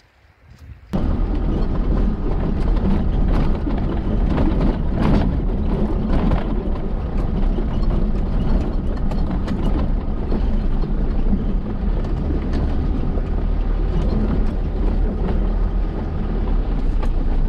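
Off-road vehicle driving over a rough, stony dry riverbed, heard from a bonnet-mounted camera: a steady, loud rumble of engine and tyres on gravel, with frequent knocks and rattles over the bumps. It starts suddenly about a second in.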